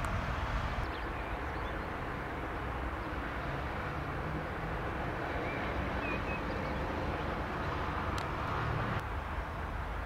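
Cessna CitationJet CJ1's twin turbofan engines running at low taxi power at a distance: a steady rushing hum.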